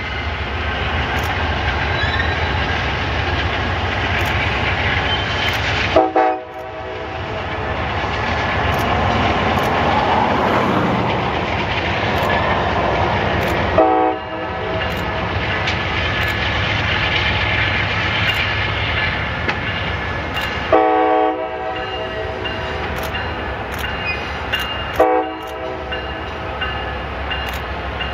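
Amtrak GE P42DC diesel locomotives hauling a passenger train across a steel trestle: steady engine and wheel running noise. Four short horn blasts sound about six, fourteen, twenty-one and twenty-five seconds in.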